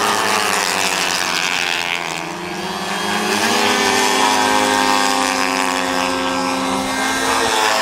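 Unlimited Class radio-control warbird racing planes flying a race heat, several model-aircraft engines and propellers droning at once, their pitches sliding up and down as the planes pass.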